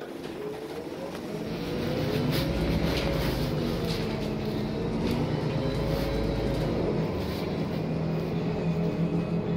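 City bus engine and drivetrain heard from inside the passenger cabin as the bus pulls away, growing louder over the first two seconds and then running steadily. A whine glides up and down over the engine hum, with a few light rattles.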